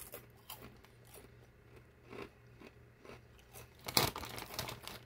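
Mouth chewing crunchy Wise Nacho Twisters snack twists, with irregular crunches and a louder, denser run of crunching about four seconds in.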